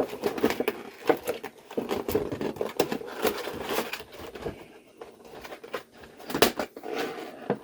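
Doll packaging rustling and clicking as an outfit is worked free of it by hand: a dense, irregular run of small crackles and knocks, with a sharper snap about six and a half seconds in.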